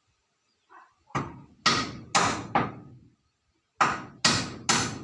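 Hammer blows, four strikes about two a second, a short pause, then three more, each with a brief ringing decay.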